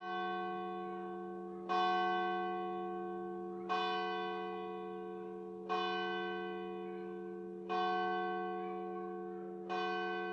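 A single bell tolling: six strokes on the same note, about every two seconds, each one ringing on and fading into the next.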